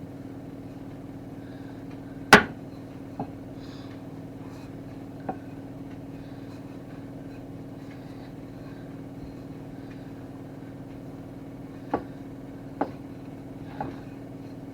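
Rolling pin rolling out shortbread dough on a floured worktop: a handful of sharp knocks, the loudest about two seconds in, two fainter ones soon after, and three more near the end, over a steady low hum.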